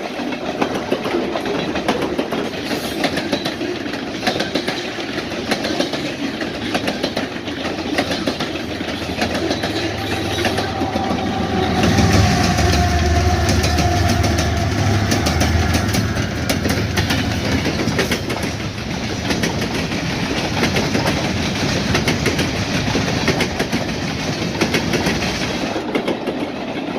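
Train rolling past: continuous rumble with the clicking clatter of wheels over the rails. A deeper rumble swells about ten seconds in and fades by about seventeen seconds.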